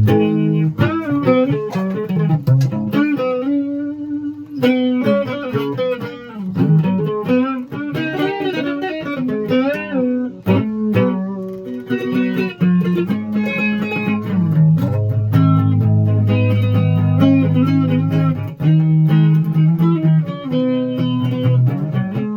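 Guitar music, continuous and loud, with plucked notes and melody lines that bend in pitch.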